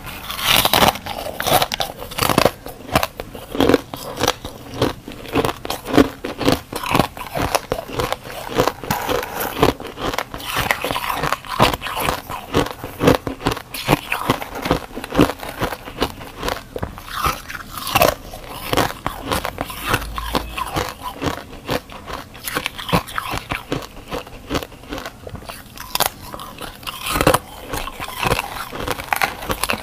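Close-miked crunching and chewing of freezer frost: dense, rapid, crisp crunches as chunks of frozen frost are bitten and chewed.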